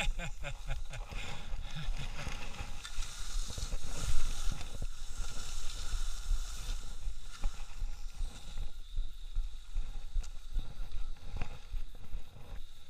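Skis sliding and scraping over groomed snow on a downhill run, with wind rumbling on the microphone and a few short knocks.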